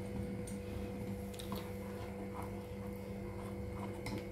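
Steel spoon stirring hot milk in a steel pot, with a few faint scrapes and taps against the pot, over a steady low hum.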